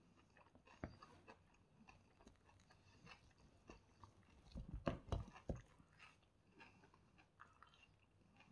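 Faint crackling and crunching of a crispy golden-coated chicken piece being pulled apart by fingers, with a louder cluster of crunches about halfway through.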